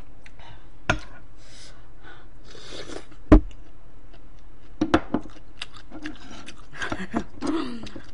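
Chopsticks clicking and tapping against porcelain plates while food is picked up and eaten: a few sharp clicks, the loudest about a third of the way in and a quick cluster of them about five seconds in, with soft rubbing between.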